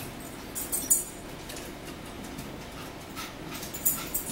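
Close-up eating sounds: lip smacks and chewing, a few short, sharp smacks spread through the moment.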